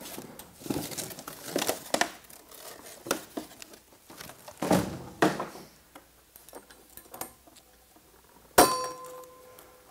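Packing being handled: cardboard rustling and wooden and metal parts knocking and clicking. Near the end a metal part clangs loudly and rings on in a steady tone.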